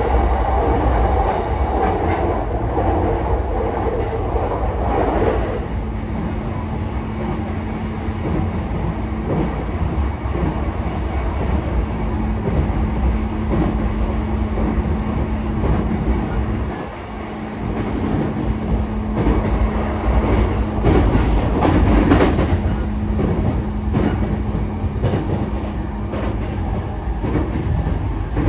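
Running sound inside a car of a JR E233-5000 series electric train: a steady rumble of wheels on rail. A pitched whine fades out about five seconds in, a steady low tone carries on after it, and a run of clacks comes around twenty-one seconds in.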